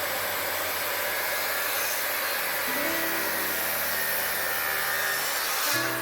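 A power tool running steadily with a loud whirring hiss, stopping just before the end, over background music.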